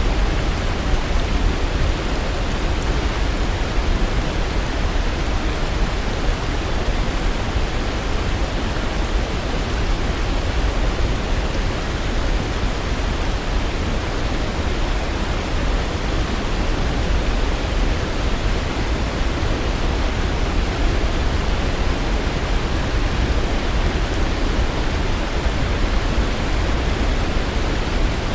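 Waterfall: water rushing and falling in a steady, unbroken roar, deepest in the low end.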